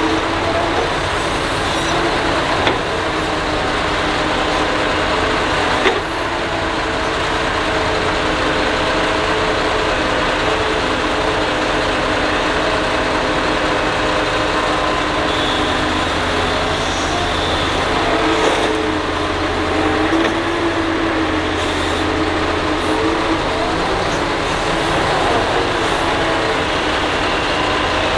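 Doosan DX225LC excavator's diesel engine and hydraulics running steadily under load, with pitched tones that rise and fall as it digs, swings and dumps soil into a dump truck. A sharp knock or two comes in the first few seconds.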